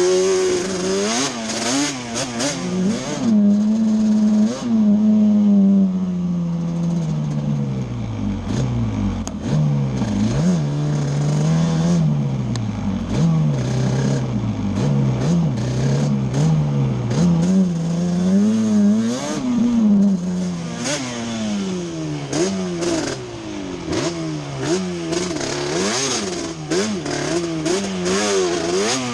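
Yamaha Banshee's twin-cylinder two-stroke engine revving up and falling back again and again under riding, running without a misfire now that the carburettor needles are back in the middle position.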